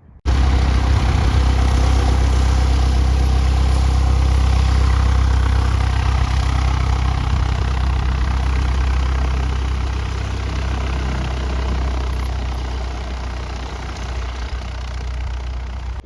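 Light aircraft's piston engine and propeller running close by, a steady low drone over a broad rush of noise. It starts abruptly and eases off slowly over the last few seconds.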